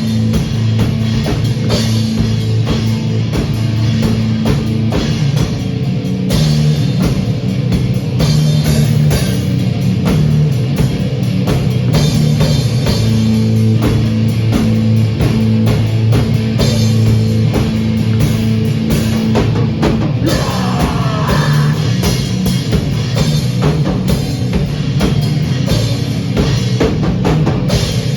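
Rock band jamming: drum kit with loud, dense cymbal and drum hits over distorted guitar and bass holding low notes.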